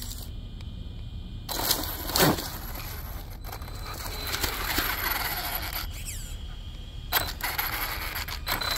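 Arrma Nero RC monster truck driving over asphalt and dry leaves in three bursts of throttle. Its electric motor whines up and down while the tyres crunch through the leaves.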